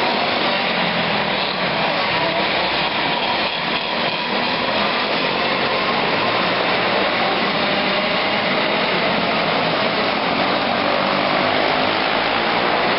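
Several small racing kart engines running laps on a dirt track, a steady high-pitched buzzing drone whose pitch wavers up and down as the karts accelerate and lift, heard inside a large indoor arena.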